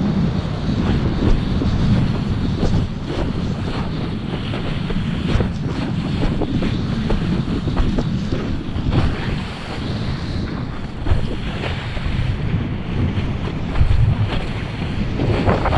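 Heavy wind buffeting the microphone while a kiteboard planes across choppy water, with spray rushing off the board and frequent short slaps as it hits the chop.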